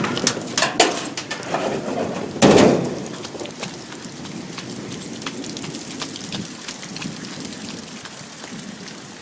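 Heavy rain pouring down, with many close drops spattering. There is a loud sudden crash about two and a half seconds in.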